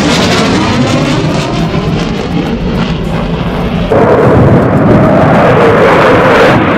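F-16 fighter jet engine noise during a low display pass: a loud, rushing roar with deep rumble. About four seconds in it grows louder, and a whine falls slowly in pitch as the jet goes by.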